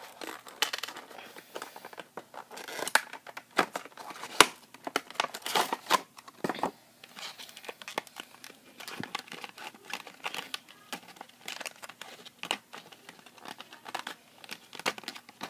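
Die-cast model airliner's box and its protective plastic packaging being opened and handled by hand: irregular crackles and rustles throughout.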